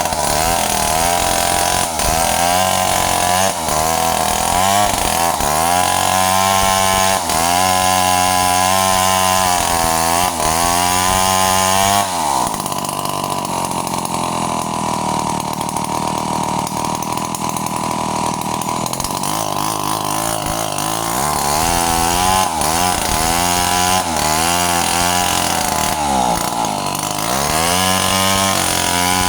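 Stihl chainsaw running at high revs, its pitch sagging and recovering again and again as it works, with a lower, steadier stretch about twelve seconds in.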